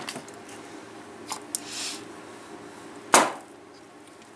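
Parts of a reduction-gear car starter being handled during disassembly: a few light clicks, then one sharp knock about three seconds in.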